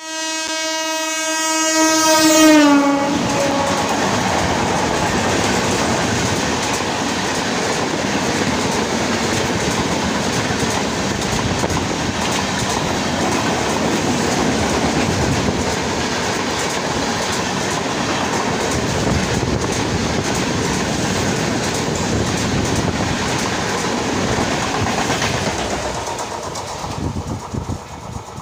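An Indian Railways electric locomotive's horn sounds one long note for about two and a half seconds, dropping in pitch as the engine passes, then the red LHB coaches of a Rajdhani Express rush by on the adjacent track: a steady roar and clatter of wheels that fades near the end.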